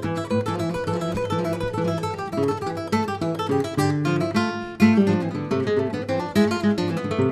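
Background music: acoustic guitar played with quick plucked and strummed notes.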